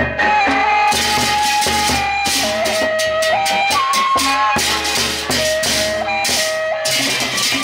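Sasak gendang beleq ensemble playing a gending: a held melody line stepping between notes over drums and gongs, with repeated bursts of clashing cymbals.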